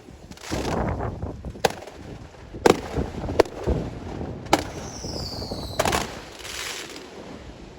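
Fireworks salute: five sharp bangs a second or so apart, each followed by a rolling echo, with a falling whistle about five seconds in.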